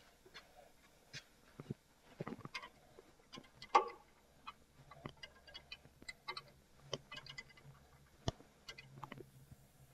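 Steel wrench clicking and clinking on a brake line fitting at the caliper as the fitting is worked loose, in scattered light metallic ticks, with one louder clank a little under four seconds in.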